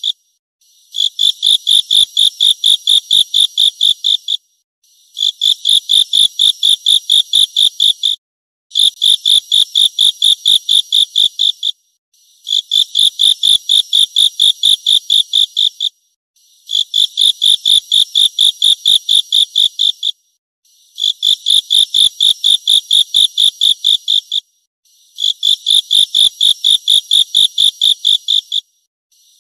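A singing insect stridulating in bouts of about three and a half seconds, each a fast train of sharp, high-pitched pulses, about five a second. Seven bouts come at even spacing, about four seconds apart, with short silent gaps between them.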